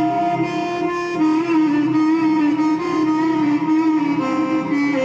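Instrumental accompaniment to an Iraqi mawwal, playing a continuous, ornamented melody with a plucked-string sound between the sung lines.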